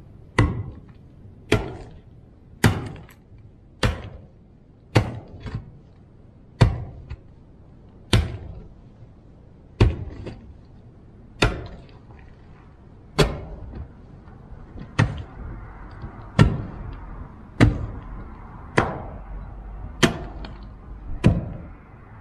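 Heavy impacts struck over and over at a steady pace, about one every second to second and a half. Each is sharp with a short ring, over a steady low rumble.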